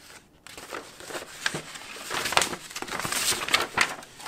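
Printed paper sheets rustling and crinkling as they are unfolded and leafed through by hand. The crinkles are irregular, begin about half a second in and grow louder after about two seconds.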